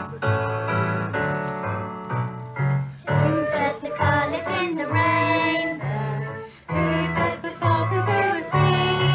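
Girls singing a worship song into microphones over an instrumental backing track with a stepping bass line. The accompaniment plays alone at first, and the children's voices come in about three seconds in.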